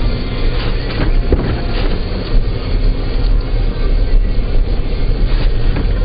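Steady low rumble of a car driving on a snow-covered road, with scattered knocks and bumps through the ride.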